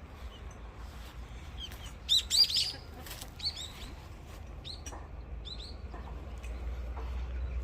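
Small birds chirping in short, high calls, a cluster of them about two seconds in and a few more over the next three seconds, over a steady low rumble.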